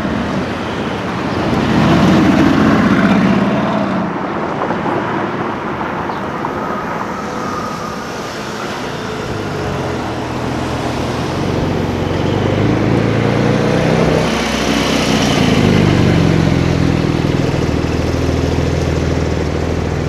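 A passing Aston Martin Vantage Roadster, loudest about two seconds in, then a Porsche 911 Turbo cabriolet's twin-turbo flat-six pulling away past the camera, its engine note rising and falling and loudest in the second half, over street traffic.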